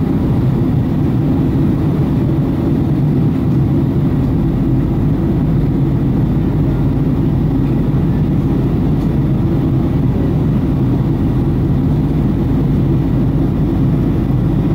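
Steady low drone inside an airliner cabin on descent: jet engine and airflow noise heard from a window seat over the wing.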